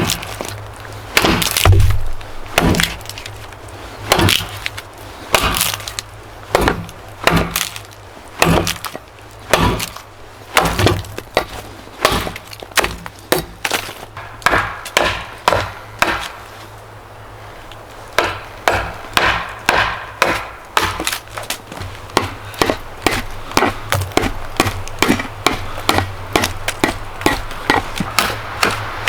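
Repeated blows on wood: a long run of sharp knocks, about one a second at first, pausing briefly past the middle, then quicker and lighter, two to three a second, near the end, as wood is chopped or struck with a tool.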